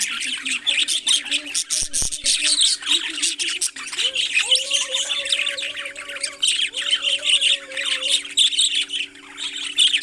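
Parrots chirping and squawking continuously in rapid, high-pitched calls, over a steady low hum.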